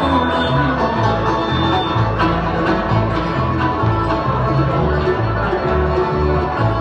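Bluegrass band playing: banjo and guitar picking over a steady bass that alternates between two notes about twice a second.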